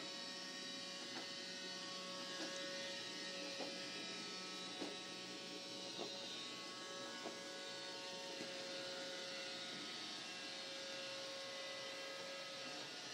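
Roomba robot vacuum running, a steady motor hum and whine, with a light click about every second and a bit that stops about eight seconds in.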